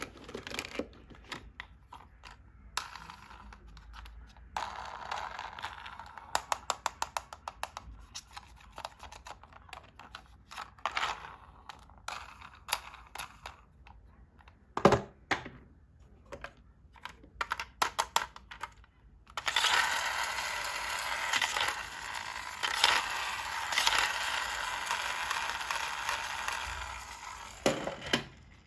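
Hands unboxing plastic toys: quick runs of clicks and taps from the plastic pieces and packaging, one sharp louder click midway, then a long stretch of continuous crinkling and tearing of plastic packaging in the second half.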